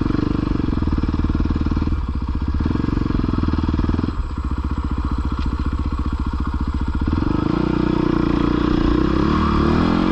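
450 four-stroke dirt bike engine running under throttle while riding, with brief dips in throttle about two and four seconds in and the engine pitch rising over the last few seconds.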